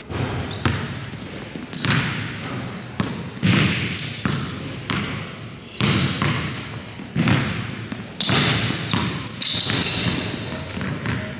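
Basketball dribbled on a hardwood gym floor: irregular bounces about once a second, echoing in the hall, with a few short high sneaker squeaks.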